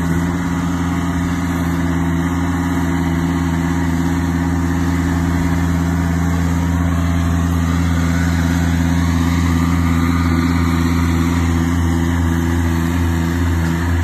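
Engine of a tracked Altec aerial lift running steadily as the machine crawls along on its rubber tracks.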